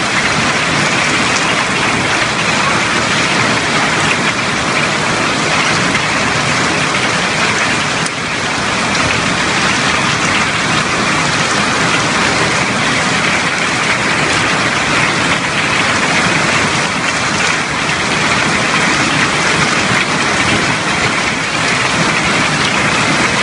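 Heavy hailstorm: hailstones and rain falling hard, a dense, steady hiss of countless small impacts.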